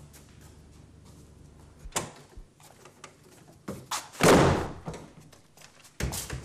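A door banging shut with a loud thud about four seconds in. A lighter knock comes about two seconds in, and another thump near the end.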